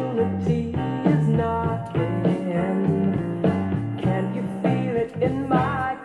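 Northern soul song playing from a 1960s 7-inch acetate record on a turntable: a band with drums, and a singer's wavering held note near the end.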